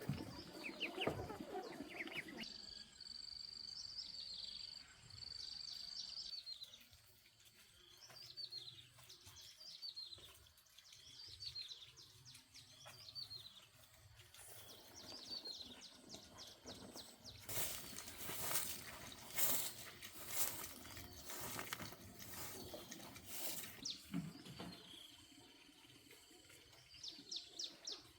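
Small birds chirping in repeated quick falling notes against a quiet outdoor background. For several seconds in the middle, a run of short rough noises is louder than the birds.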